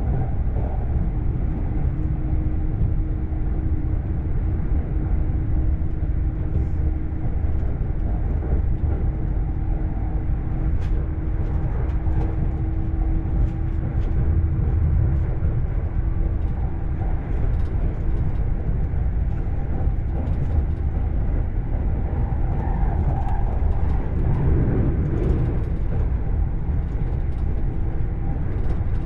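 Shonan-Shinjuku Line electric commuter train heard from inside the passenger car while running between stations: a steady rumble of wheels on rail, with a steady low hum through much of it.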